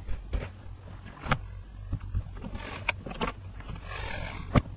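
Rustling and knocking from plush toys being handled right against a webcam's microphone: about six sharp bumps, the loudest near the end, with two short spells of fabric rubbing, over a steady low hum.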